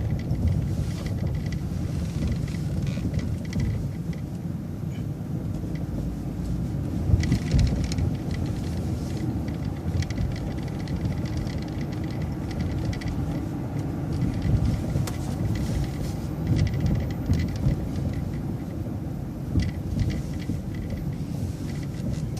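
City transit bus in motion, heard from inside: a steady low engine and road rumble, with occasional short rattles and knocks.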